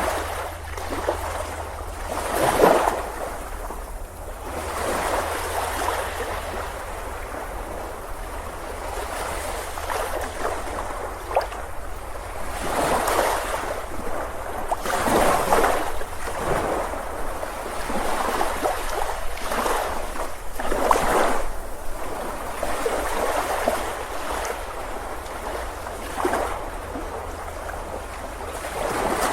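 Surf on a beach: waves breaking and washing in, a rush of water swelling and fading every few seconds, the loudest about two and a half seconds in.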